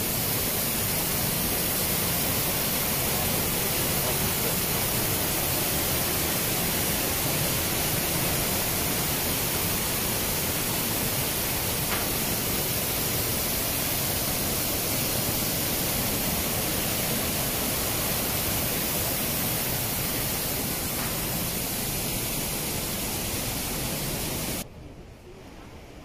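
Iguazu Falls waterfall: water pouring down in a loud, steady, even rush of noise. It cuts off abruptly near the end, leaving a much quieter background.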